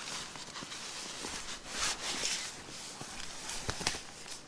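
Synthetic nylon fabric rustling in bursts as a sleeping bag in its compression stuff sack is dragged out of a backpack, with a few light knocks.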